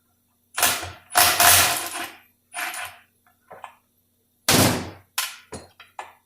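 A series of sharp metal knocks and clatters, about seven in a row with gaps between them, each with a short ringing tail, from tools and parts being worked loose on a Dodge 46RE transmission during teardown; the strongest comes about a second in and another heavy one near the two-thirds mark.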